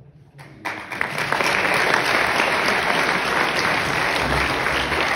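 A short hush after the final chord, then an audience breaks into applause under a second in and keeps clapping steadily.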